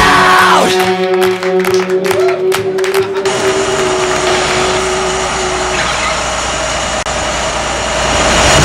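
The closing held note of a rock song dies away over a few clicks. About three seconds in, a steady rumble of vehicle engine and traffic noise takes over.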